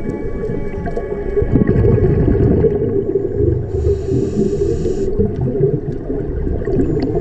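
Muffled underwater noise from a submerged camera: a dense, steady low rumble of moving water, with faint thin tones above it and a short high buzz about four seconds in.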